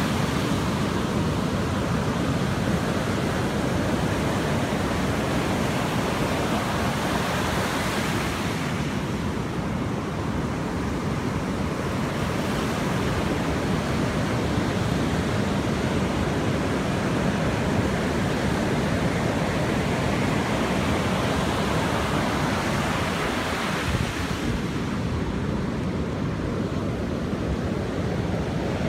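Ocean surf breaking and washing up a sandy beach: a continuous rushing wash whose hiss eases off twice, about a third of the way in and again near the end, as the waves come in and draw back.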